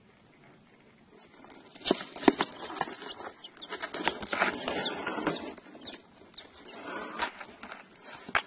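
Young chicks peeping in short high calls, over scratchy rustling and knocks from the camera pressing against their down. This begins about two seconds in.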